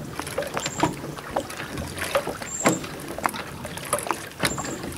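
Kayak's hydrofoil drive being worked back and forth: water splashing around the foils, with irregular knocks and rattles from the mount and a short high squeak about every two seconds.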